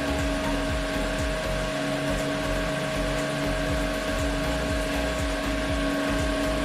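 White Westinghouse air cooler's fan running steadily on power from a 1000 W modified-sine-wave inverter: an even motor whir with a few steady humming tones. The steady run shows the inverter carrying the cooler's load.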